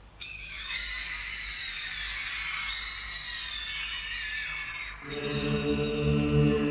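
Opening of a song: high, gliding tones for about five seconds, then a low sustained chord comes in and grows louder.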